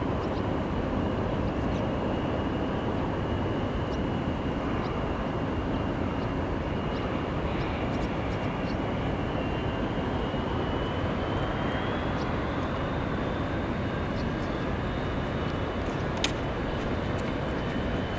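Airbus A320 jet engines at takeoff power as the airliner accelerates down the runway: a steady rush with a faint high whine that rises a little about two-thirds of the way through. A single sharp click sounds near the end.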